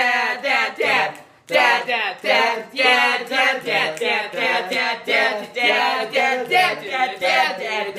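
Three teenage boys singing a pop-punk song a cappella in barbershop-trio style, voices together with a wavering vibrato and a short breath break about one and a half seconds in.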